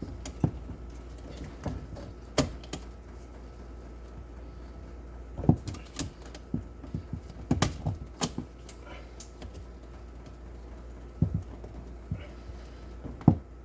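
Irregular sharp clicks and knocks of hand tools and plumbing fittings being handled, over a steady low hum.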